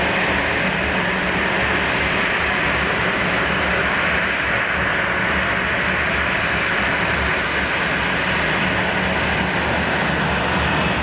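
Boeing 737-700 jet engines running at taxi power, a steady jet hum and hiss as the airliner taxis in toward its stand.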